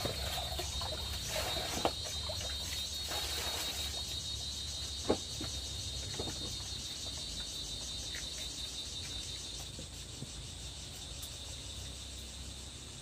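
A steady, high-pitched chorus of insects chirring, part of which drops out about ten seconds in. Over it come a few light clicks and one sharper knock about five seconds in, from a knife working on a melon.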